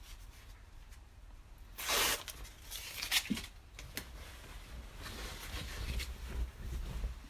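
Clothing being handled and put on, its fabric rustling: a loud rustle about two seconds in, then shorter sharp rustles and a softer stretch of rustling.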